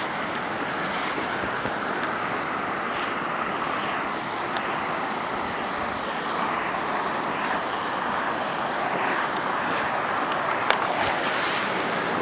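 Rushing water of a waterfall and rapids: a steady, even rush with a single faint click near the end.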